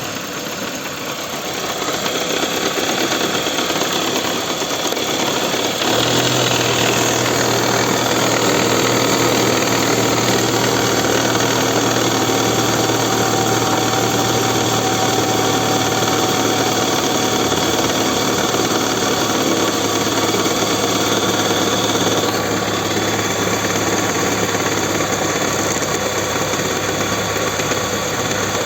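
Toyota Camry 2AZ-FE 2.4 four-cylinder engine idling steadily while still warming up from a cold start. Its low hum gets stronger and a little louder about six seconds in.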